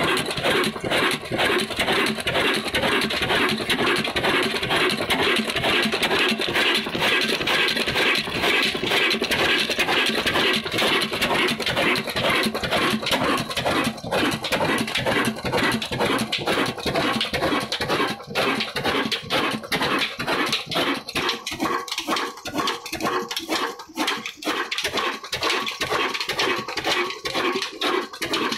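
Old Ruston Hornsby 22 HP diesel oil engine running, a fast, even mechanical knocking from the engine and its spinning flywheel, the beats standing out more distinctly in the last third.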